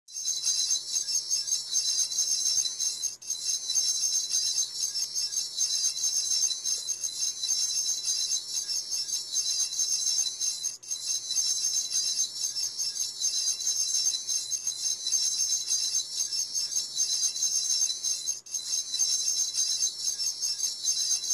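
Intro music under title cards: a steady, high, glittering texture with almost nothing in the low end, broken by a brief gap about every seven and a half seconds, as a repeating loop.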